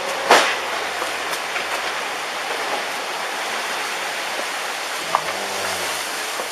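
Tsunami floodwater rushing in with great force, a steady noise of churning water, with one sharp bang about a third of a second in.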